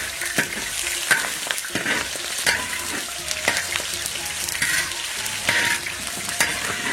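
Aromatics sizzling as they are stir-fried in hot rapeseed oil in a wok, with a spatula scraping and knocking against the pan about once a second.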